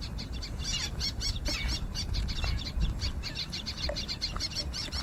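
Birds calling in rapid series of short, sharp, high-pitched calls, several a second. These are alarm calls from birds mobbing a person who has come near.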